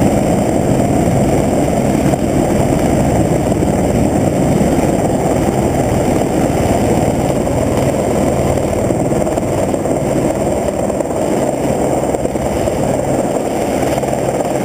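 Helicopter running steadily, its engine and rotor noise loud and unbroken.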